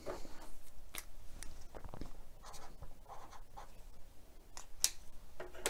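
Pen writing "2.5" on a paper sticky note: faint scratching strokes with a few light clicks.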